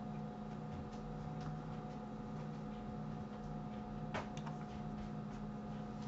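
Steady low electrical hum with a few faint clicks of a computer mouse and keyboard being worked, the clearest about four seconds in.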